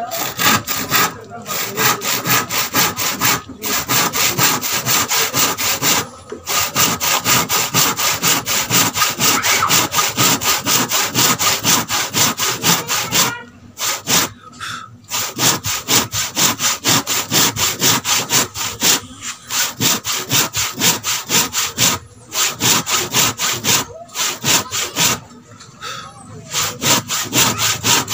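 Handsaw cutting through a rough wooden plank in quick, even back-and-forth strokes, with a few short pauses; the longest comes a little past halfway.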